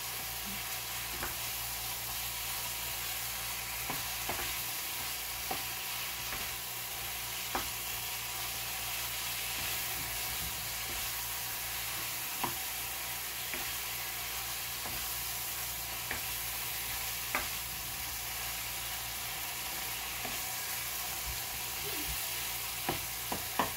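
Chicken pieces frying in spiced tomato masala in a nonstick wok over a gas flame, sizzling steadily while a spatula stirs them, with occasional sharp taps of the spatula against the pan.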